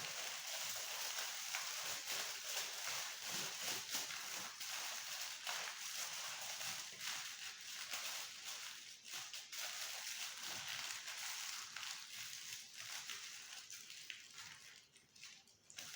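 Aluminium foil being crumpled and squeezed by hand into a sculpture frame, a continuous crinkling and crackling that thins out near the end.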